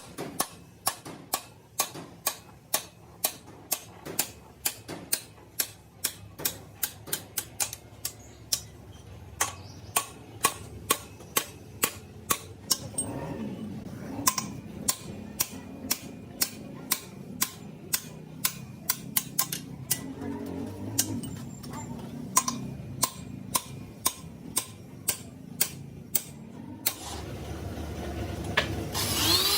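A long series of sharp knocks or taps, roughly two a second and a little uneven, which stop shortly before the end.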